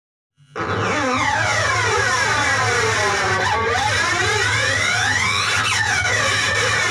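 Distorted Stratocaster-style electric guitar imitating Formula 1 race cars. A dense, steady buzz with many sliding pitches that rise and fall, starting about half a second in.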